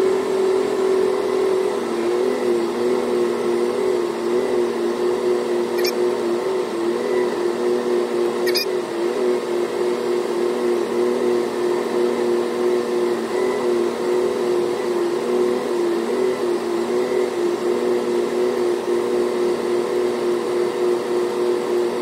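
Steady machinery drone heard from inside a tractor cab, with a few steady hum tones that waver slightly, while a John Deere combine alongside unloads soybeans into the grain cart on the go. Two brief clicks come about six and eight and a half seconds in.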